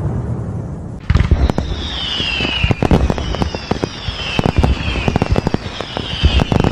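Fireworks: a low rumble fades out, then about a second in rapid sharp bangs and crackling begin, with falling whistles that repeat roughly every second and a half.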